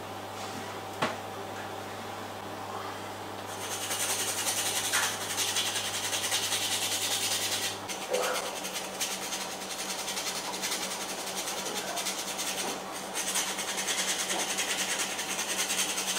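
Mesh abrasive sheet (Abranet) rubbed back and forth by hand over the bowl of a willow spoon: a dense, scratchy sanding hiss that starts a few seconds in and carries on with short breaks. Before it, a single sharp click about a second in.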